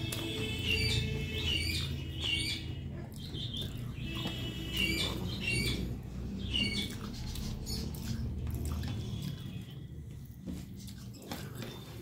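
Small birds chirping in short repeated calls, thinning out after about seven seconds, over a steady low hum.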